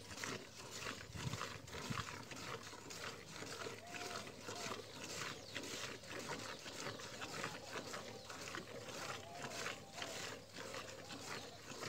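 Hand-milking a cow: jets of milk squirting into a steel bucket in a steady rhythm of short hissing strokes.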